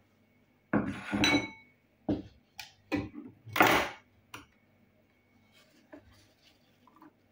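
Kitchenware being handled: dishes and utensils knocking and clinking in a run of short clatters over the first four seconds, one with a brief metallic ring, then a few faint knocks.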